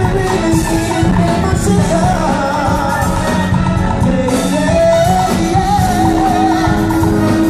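Live band playing an upbeat Latin freestyle song with a singer's voice carrying the melody over a steady drum beat.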